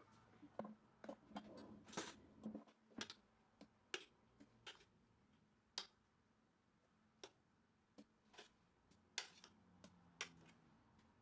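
Faint, irregular clicks and light knocks of a plastic spatula against a metal pot while thick cream is scooped out and dolloped onto crepes.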